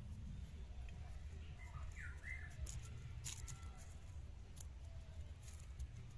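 Faint outdoor ambience with a steady low rumble, a few short bird chirps about two seconds in, and occasional light clicks and rustles of papery skins being peeled off by hand.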